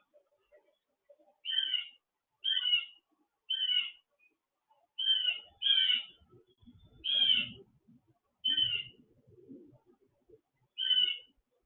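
A bird calling repeatedly: eight short, wavering calls about a second apart. Faint low rumbling and knocks come in the middle.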